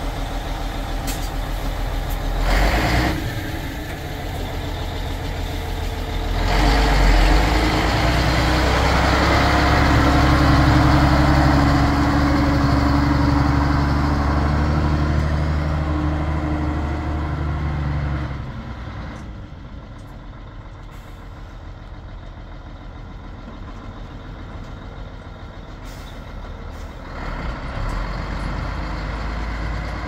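Heavy diesel dump truck engine running at idle, with a brief hiss about three seconds in. The engine then revs up loudly for about ten seconds as the truck pulls away, and drops to a lower, more distant drone before picking up again near the end.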